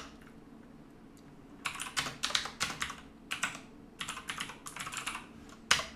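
Typing on a computer keyboard: after a short quiet pause, quick runs of keystrokes as a shell command is typed, ending with one sharper key click near the end.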